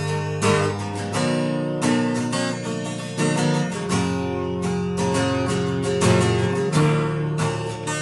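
Background instrumental music: a steady run of quick plucked-string notes and chords.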